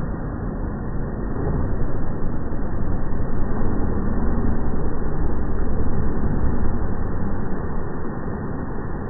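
Toyota Land Cruiser driving through muddy puddles: the engine working under load and water spraying from the wheels, louder from about two seconds in.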